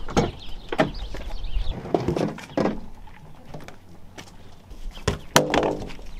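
Scattered thunks, knocks and clicks of a pickup truck door and camper gear being handled, with one sharp click near the end.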